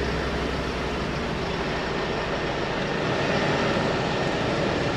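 Steady running and road noise of a moving vehicle: a low rumble under an even hiss, with no distinct events.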